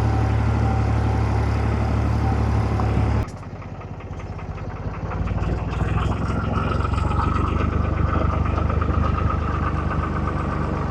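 Diesel farm tractor engine idling with a heavy low hum. About three seconds in it cuts to a quieter engine running, with a steady higher whine over it from about six seconds.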